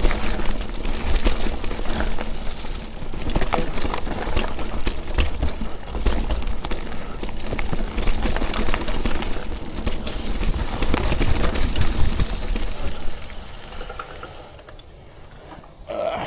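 Mountain bike riding down a rough dirt trail: tyre rumble and rattling of the bike, with wind buffeting the microphone. It quietens sharply about thirteen seconds in.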